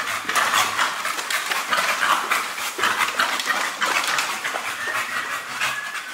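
Large, heavy dog panting in a quick, even rhythm of about three breaths a second.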